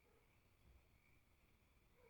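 Near silence: a faint background hiss in the gap between sound effects.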